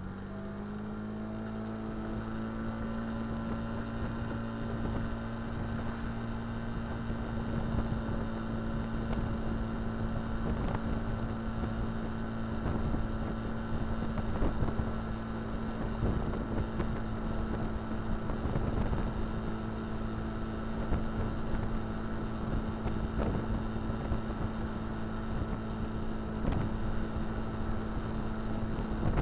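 Kymco Dink Street scooter's single-cylinder four-stroke engine, its pitch climbing in the first second and then holding steady while riding, with wind noise buffeting the microphone.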